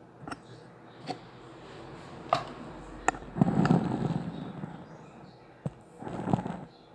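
Handling noise: several sharp clicks and knocks, with a short rustling burst about halfway through and another near the end.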